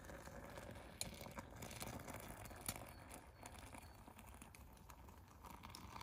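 Hot water poured from a camping pot into a stainless steel Stanley French press, a faint, steady pour with two sharp clicks about one and three seconds in.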